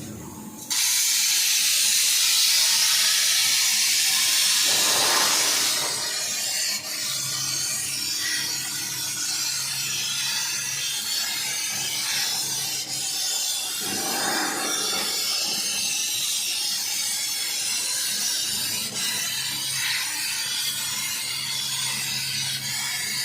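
CNC laser cutting machine cutting 2 mm mild steel sheet: a loud hiss of the cut and its assist gas starts suddenly about a second in, then drops after about five seconds to a quieter steady hiss with a low machine hum.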